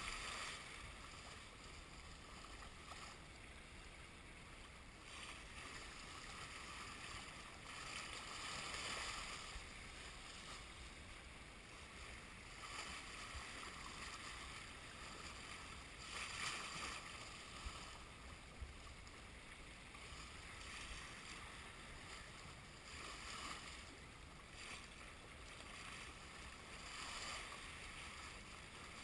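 Water washing along a sailboat's hull, with wind noise, swelling and easing every few seconds.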